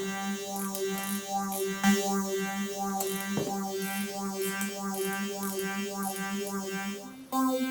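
A held synthesizer note played through a Boss MD-200 modulation pedal set to phaser, its tone sweeping in a steady whoosh about one and a half times a second. The note steps up to a higher pitch near the end.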